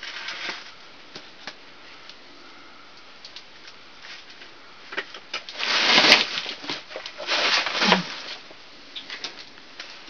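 Rustling and scraping as a caver reaches in among rocks, with scattered small clicks of stones shifting and two louder scraping rushes about six and eight seconds in.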